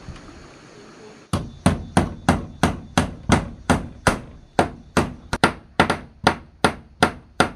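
A hammer striking repeatedly at a steady pace of about three blows a second, starting a little over a second in, each blow sharp with a short ring.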